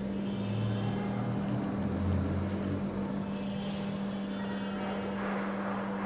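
Steady low background hum, with a deeper rumble that swells and fades over the first three seconds.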